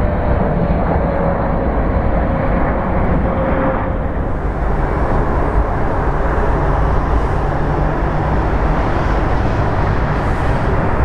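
Boeing 777 jet engines running during landing: a steady roar with a faint high whine that fades out about four seconds in, after which the noise turns hissier.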